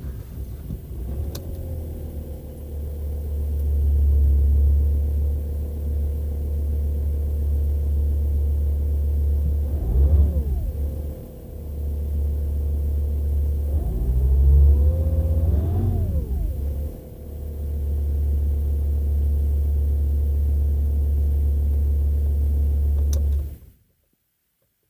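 VW T5 Transporter's 2.5 TDI five-cylinder diesel running at idle, revved up briefly twice in the middle, then stopping suddenly near the end. The engine starts hard, which the owner puts down to bad injector seals.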